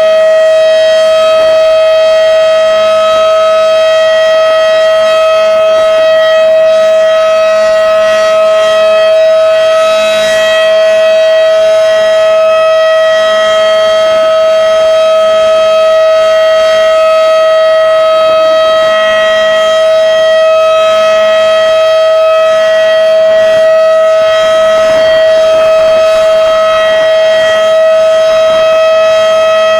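Federal Signal Model 5/7 outdoor warning siren sounding the steady alert signal: one loud, unbroken tone that holds the same pitch throughout.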